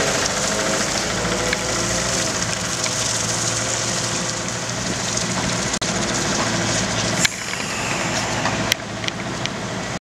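A heavy Linde diesel forklift's engine running steadily, with two sharp knocks near the end.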